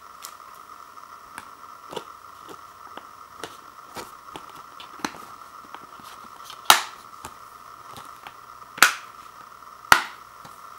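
Plastic Blu-ray keep case and disc being handled: light clicks and taps, then three sharp plastic snaps in the second half as the disc is pressed onto the case's centre hub and the case is snapped shut.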